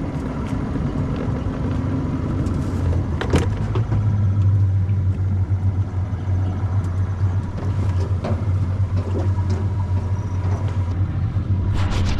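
An engine running steadily with a low, even hum, with a sharp knock about three seconds in and a few clicks near the end.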